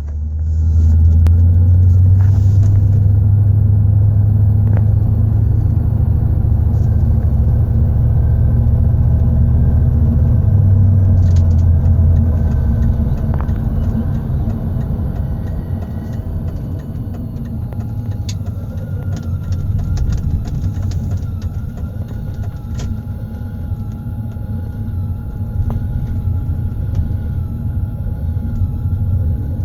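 BMW E31 840Ci driving, with heavy engine and road rumble for the first dozen seconds. Through this runs a thin, wavering high whine, clearest in the second half: the squeak of a dry propshaft centre bearing, which goes quiet once the bearing is greased.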